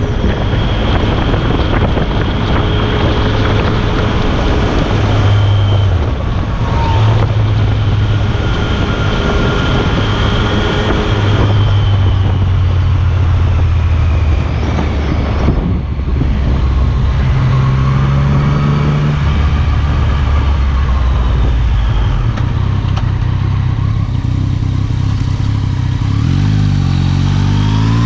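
Yamaha FZ-09's inline-three engine running through an Akrapovič carbon-fibre exhaust under riding load. Its pitch steps up and down with the throttle, then rises steadily in the last couple of seconds as the engine revs up.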